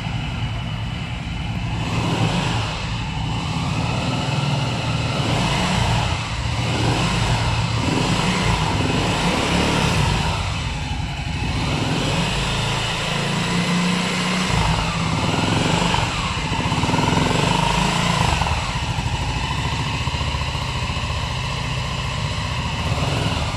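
Dinamo Molotov 200cc buggy's four-stroke, air-cooled single-cylinder engine running steadily.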